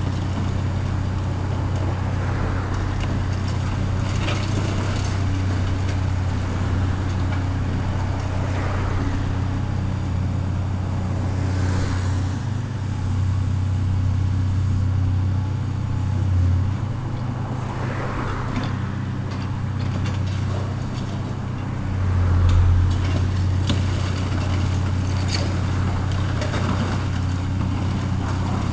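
Diesel engine of heavy demolition machinery running steadily, swelling briefly twice in the second half, with scattered knocks and scrapes over it.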